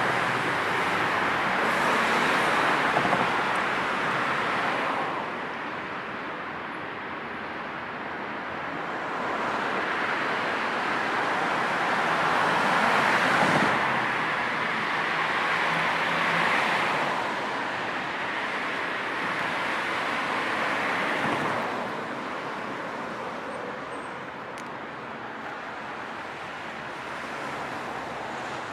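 Road traffic: a steady wash of car tyre and engine noise that swells as vehicles pass and eases between them, growing quieter over the last few seconds.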